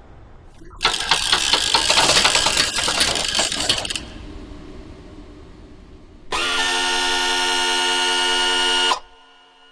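Transformers-style robot sound effects: a dense burst of rapid mechanical clicking and clattering for about three seconds that trails off into a quieter rattle, then a steady buzzing pitched tone that holds for nearly three seconds and cuts off suddenly.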